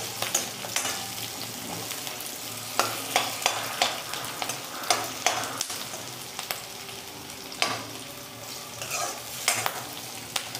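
Sliced onions and garlic frying in oil in a kadai on a low flame, with a steady sizzle. A steel spatula scrapes and taps against the pan at irregular moments as the pieces are stirred.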